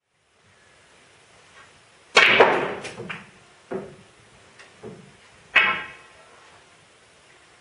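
Snooker balls struck by the cue and clacking against one another and the cushions in a run of sharp knocks. The loudest comes about two seconds in, with quick clicks after it, and single knocks follow at intervals over the next few seconds.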